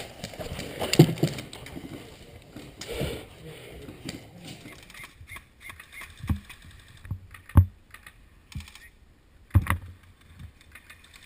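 Airsoft guns firing irregular single shots, heard as sharp clicks and snaps, with a quick cluster of several shots near the end, over rustling movement noise.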